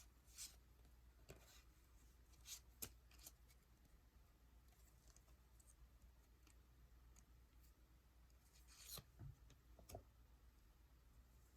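Near silence with a few faint, short rustles and taps: a foil trading-card booster pack and its cards being handled.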